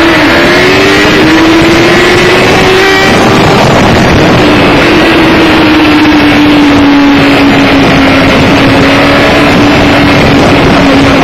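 Yamaha R6 inline-four engine running at high revs, heard on board under heavy wind rush on the microphone. The engine note rises a little over the first few seconds, then holds and eases slowly down.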